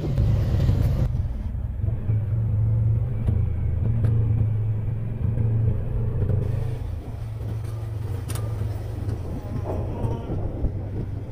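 A vehicle engine running steadily at low revs close by, a low hum that eases off slightly about seven seconds in.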